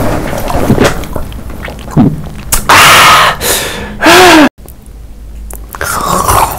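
Gulps of a drink swallowed from a can, then a loud, breathy gasp after swallowing and a short vocal sound that rises and falls in pitch. The sound cuts off suddenly about four and a half seconds in.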